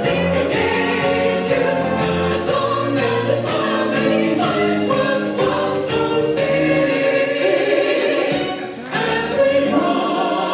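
Female vocal trio singing 1940s-style close harmony with musical accompaniment, including a bass line, dipping briefly near the end before the voices come back in.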